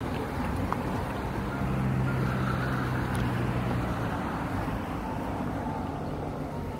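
A low engine drone, like a motor vehicle passing, over steady outdoor background noise. It swells about two seconds in and then slowly fades.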